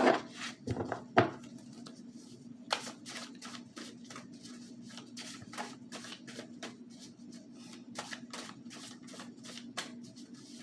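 Tarot cards being shuffled and handled: a run of light clicks and taps, a few a second, over a faint steady hum.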